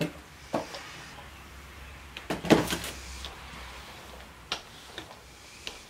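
Handling noise as a small paint roller is picked up and brought to the tabletop: a few light clicks and knocks, with a short sharp clatter about two and a half seconds in.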